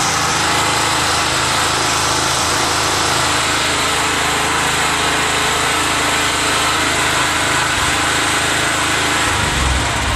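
XLNT 3000 W petrol portable generator engine running at a steady speed.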